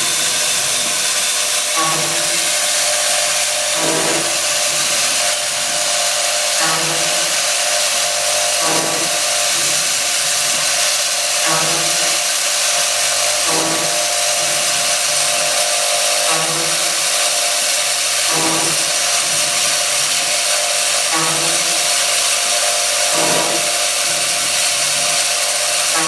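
Automatic valve stem groove milling machine running, with a steady whine and hiss and a repeating working cycle about every two and a half seconds.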